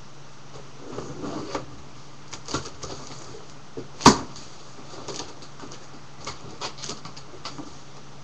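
Cardboard box being handled and its packing tape cut with a knife: a string of short scrapes and clicks, with one sharp knock about four seconds in. A low steady hum runs underneath.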